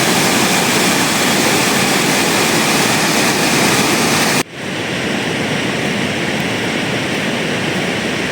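Loud, steady rush of water, with a sudden break about four and a half seconds in, after which it goes on a little quieter.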